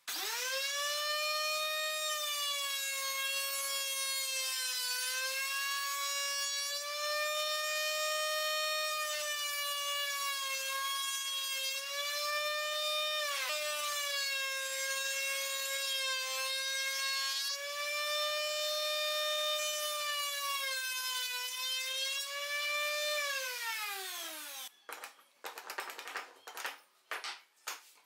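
Bench-mounted router running at full speed with a high, steady whine, its pitch sagging a little as a wooden panel is fed along the fence past the bit. Near the end the motor is switched off and winds down with a falling whine, followed by a few knocks of wood being handled.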